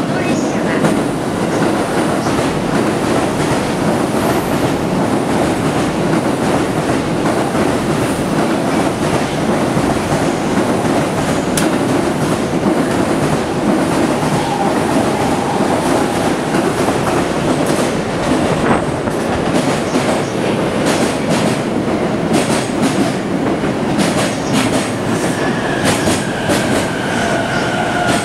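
JR East E531-series electric commuter train running into the station alongside the platform: a steady loud rumble of wheels on rail with scattered clicks from the rail joints. Near the end a falling whine joins it as the train slows.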